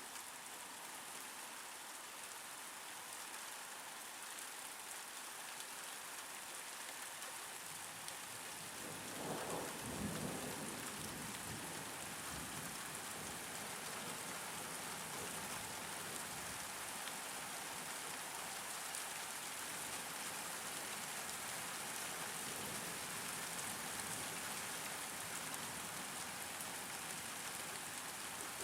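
Steady rain falling, with a roll of thunder rumbling up about nine seconds in and fading over a few seconds; after it the rain is a little louder.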